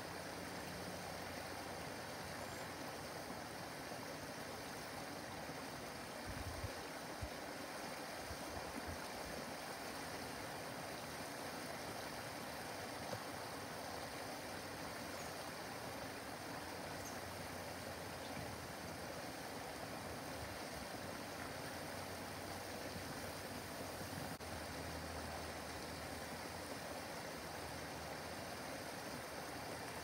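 Small backyard waterfall: water running steadily down a rocky cascade into a pond, a constant even rushing.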